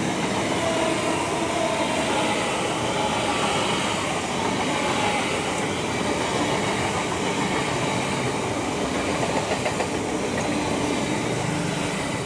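GWR Class 802 train passing close by, its wheels running on the rails in a steady, loud rumble and hiss.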